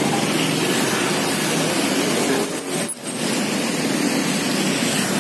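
Steady roadside traffic noise, dipping briefly about two and a half seconds in.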